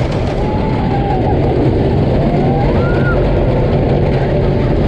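Great Coaster International wooden roller coaster train running on its wooden track: a steady rumble of the wheels mixed with wind noise on the microphone. Riders give a couple of short shouts, about half a second in and again near three seconds.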